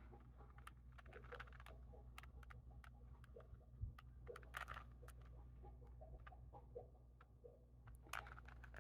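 Faint, irregular clicks of a plastic Rubik's cube being twisted layer by layer by hand.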